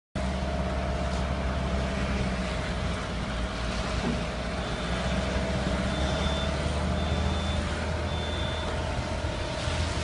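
Skid steer loader's engine running steadily under work, with a reversing alarm beeping four times about a second apart midway through.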